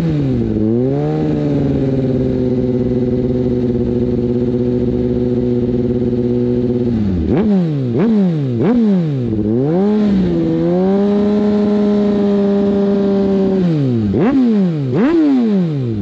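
Suzuki GSX-R sportbike's inline-four engine revved through a Voodoo aftermarket exhaust. The revs climb and are held steady for several seconds twice, with a run of quick throttle blips between the two holds and two more near the end, before dropping back toward idle.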